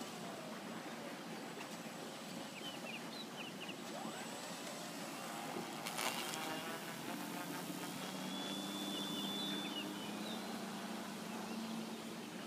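Twin electric motors and propellers of a HobbyKing Canadair CL-215 RC seaplane running as it takes off from the water and flies away. A steady motor drone with a thin high whine comes in about seven seconds in, over a constant hiss of wind and water.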